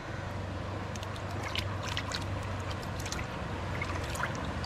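Water flowing and lapping, with scattered small splashes and drips over a low, steady rumble.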